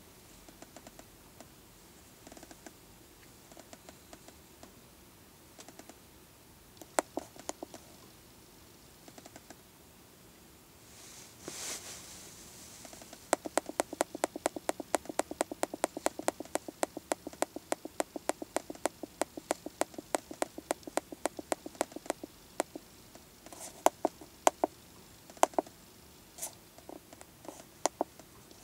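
Keypad buttons on an Autel MaxiDiag Elite MD702 handheld scan tool clicking as its menus are scrolled. There are a few scattered presses, then a fast even run of about five clicks a second for around nine seconds, then scattered presses again. There is a short rustle just before the fast run.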